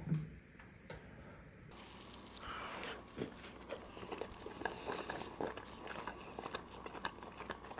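A man biting and chewing a slice of pepperoni pizza with a black-rice dough crust, heard close up as soft crunches and small mouth clicks, starting about two seconds in.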